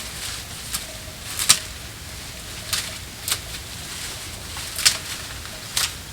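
Garden hand work: about six sharp, irregular strikes or snips spaced unevenly through the moment, with faint short bird chirps in the background.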